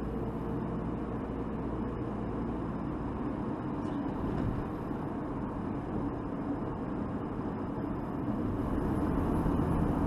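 Steady road and engine noise inside a moving car's cabin, a low even hum of tyres and engine.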